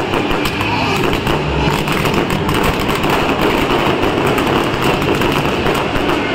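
Ground fountain firework spraying sparks: a steady loud hiss with dense crackling.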